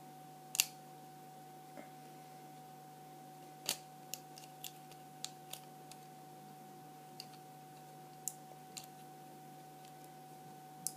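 Faint, irregular small metallic clicks and taps of a lock pick and tension wrench working inside an old Russian military padlock's keyway, about a dozen in all, over a steady low hum.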